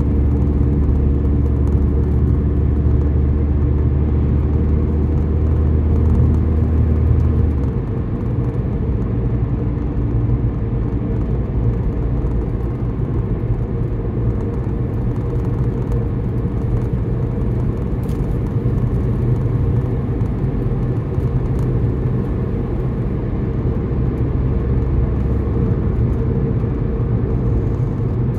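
Car driving: a steady engine and road rumble. About eight seconds in, a low drone drops away and the sound gets slightly quieter.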